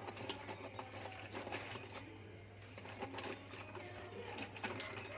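Irregular light clicks and taps of tools and metal parts being handled during washing-machine drum disassembly, over a steady low hum.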